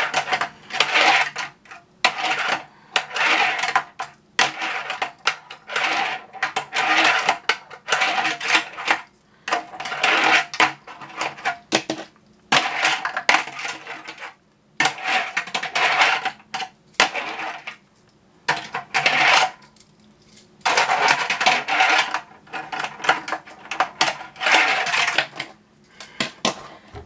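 Fingerboard's small wheels rolling and scraping back and forth across a plastic bowl ramp, in many short rattling runs with sharp clacks as the board hits and lands on the plastic.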